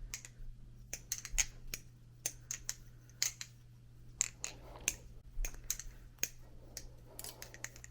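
Glidr Pacific aluminium balisong being flipped: irregular sharp clicks and clacks of the handles swinging and closing about the pivots, a few a second.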